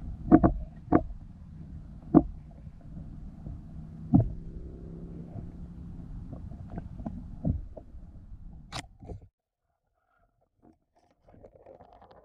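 Muffled low rumble with a few sharp knocks, as picked up through an underwater camera's housing; it cuts out suddenly about nine seconds in, leaving near silence.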